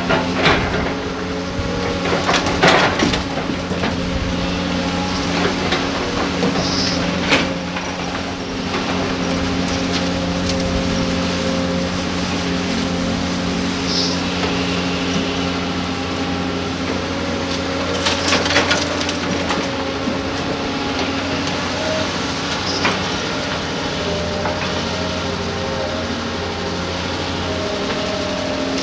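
Diesel engines of Doosan hydraulic excavators running steadily under load, with scattered clanks and knocks from the buckets digging into rock and soil.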